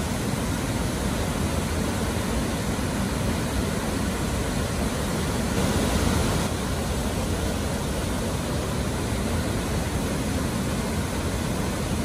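Masutobi Falls, a steady rush of white water pouring over rock, swelling slightly about six seconds in.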